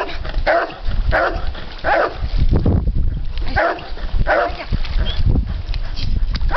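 Young Newfoundland dog barking repeatedly, about one bark every 0.7 s, with a pause of a second or so near the middle, over a low rumble.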